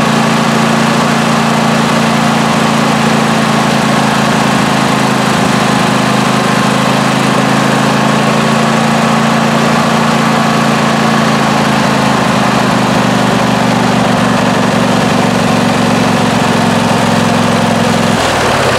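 Briggs & Stratton 26 hp twin-cylinder lawn tractor engine running steadily. Near the end its even note breaks and starts to drop.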